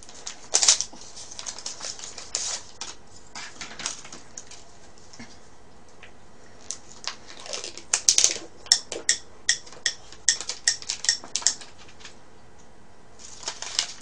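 Thin plastic packaging crackling and crinkling in irregular sharp bursts as it is handled and opened: a plastic-wrapped utensil, then the lid of a small plastic dipping-sauce cup. The handling comes in two spells, early on and again around the middle.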